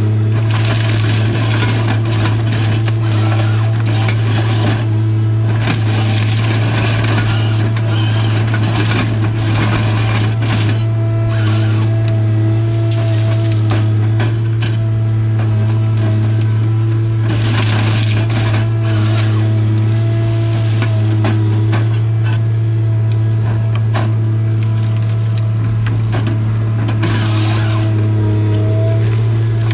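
Tigercat 855C harvester running heard inside the cab: a steady low engine drone with a fainter higher hum. Over it comes frequent crackling and snapping of branches and wood as the LogMax 7000 head handles, delimbs and saws small hardwood stems.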